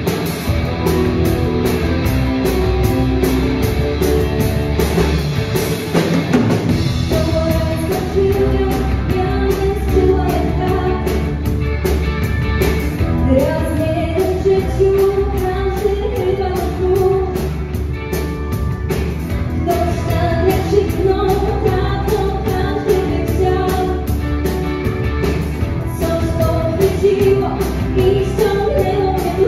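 Pop-rock song with a steady drum beat, and a singing voice that comes in about seven seconds in.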